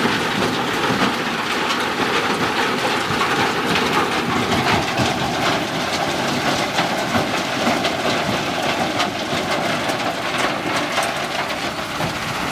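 JCB 3DX backhoe loader working: its engine runs under a steady noisy clatter of many small rattles and clicks, with a faint tone slowly falling in pitch.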